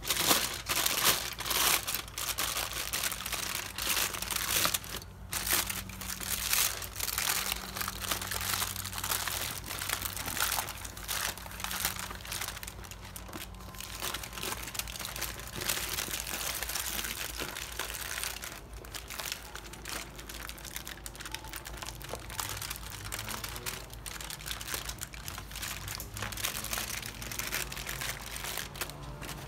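Aluminium foil crinkling and crackling in irregular bursts as gloved hands unwrap foil-wrapped racks of smoked pork ribs and fold the foil open into trays.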